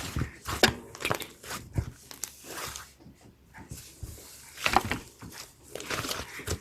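Slime being squished and pressed by hand, giving irregular sticky squelches and small pops.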